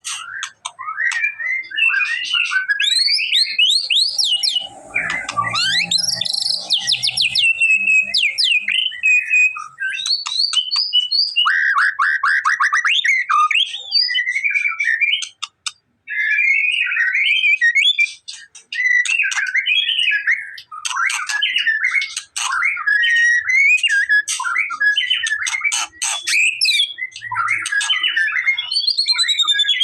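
White-rumped shama singing a long, varied song of loud whistles, rapid trills and sharp clicking notes, almost without pause. There is a brief low rumble about five seconds in.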